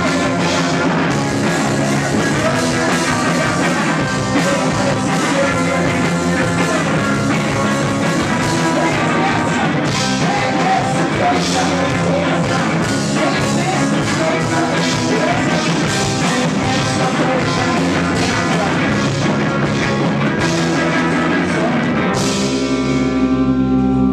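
A rock band playing live, with drums and singing. About 22 seconds in the drums stop, leaving a chord held and ringing.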